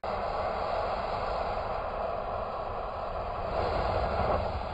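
Magiciens du Feu 'Scream' firecracker spraying a column of sparks from its upright tube before the bang, heard as a steady hiss with a low rumble under it, slowed down in a slow-motion replay. The hiss swells slightly a little before the end.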